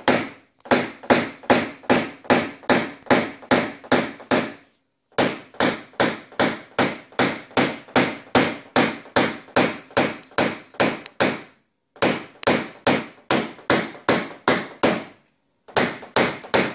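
Paintless dent repair tap-down tool tapping on a car door panel in quick, steady runs of about three sharp taps a second, with brief pauses about five, eleven and fifteen seconds in. The light taps knock the metal around a deep dent so that it spreads and levels out.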